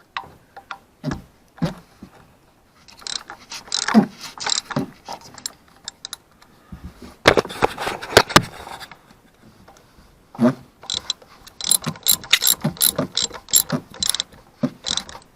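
Hand socket ratchet clicking in several runs of quick strokes with short pauses between, as an ignition coil hold-down bolt is run down and tightened.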